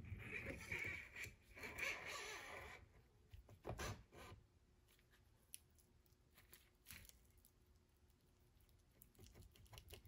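Faint handling sounds as a Mercruiser Alpha One Gen One water pump housing with its new impeller is worked down the stern drive's driveshaft and twisted to line up on the key. Rubbing for about three seconds, then a single knock a little before four seconds in, then a few light ticks.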